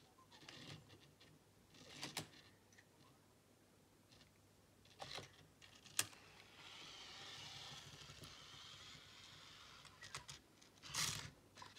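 Anki Vector robot's small tread motors whirring faintly for about three seconds as it drives off its charger, with scattered small clicks and one sharp click just before the whirring starts.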